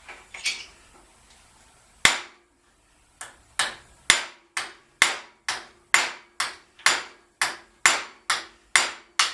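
Hammer striking the threaded end of a 1969 VW Beetle generator's armature shaft to drive it out. A few light knocks come first, then from about two seconds in a steady run of ringing metal strikes, roughly two a second.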